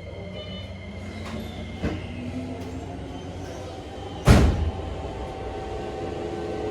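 Standing subway car: a single loud, heavy clunk about four seconds in, then the Toei 5300 series' Mitsubishi GTO-VVVF inverter starting up as the train pulls away, its several low tones climbing slowly.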